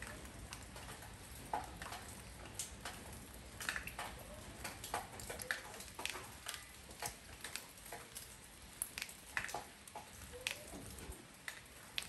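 Rain falling on a porch: scattered drops tap irregularly, several a second, some with a short plinking ring, over a soft steady hiss.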